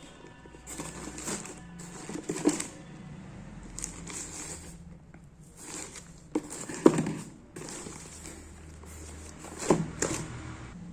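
Earbuds packaging being handled and opened: irregular rustling and scraping with a few sharp knocks, the loudest about seven seconds and ten seconds in.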